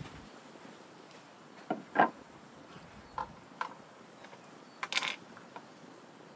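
Sharp knocks and clicks of kitchen things being handled on a wooden table and wooden cutting board. The loudest is a double knock about two seconds in, then single clicks, and a short cluster of clatter about five seconds in as a tomato and knife go onto the board.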